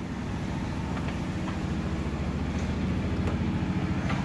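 A vehicle engine running steadily with a low, pulsing rumble that grows slowly louder.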